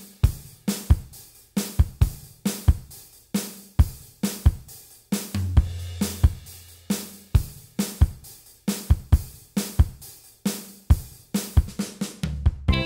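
A drum kit playing a steady beat with kick, snare, hi-hat and cymbal hits, a low bass note held for about two seconds in the middle.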